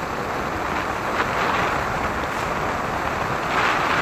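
Steady wind rush over the microphone with road noise from a Yamaha motorcycle cruising at a steady speed, swelling a little near the end.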